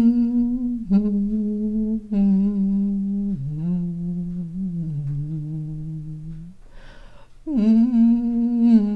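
A woman hums a slow descending scale with her lips closed, in a deep, sad, crying voice with the larynx held low. This is a vocal exercise to ease throat strain. The notes step down for about six seconds, and after a short pause she starts again on a higher note.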